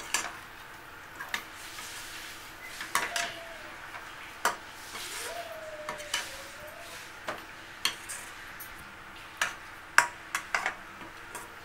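Metal spatula stirring chicken in a thick masala in a stainless steel pan, with irregular scrapes and clinks against the pan about once a second.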